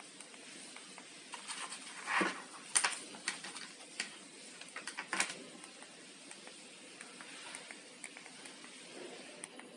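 Handling noise from an LED turn-signal vest and its small wireless remote: scattered clicks and taps with soft rustles over steady hiss, including a soft knock about two seconds in and sharper clicks a little later.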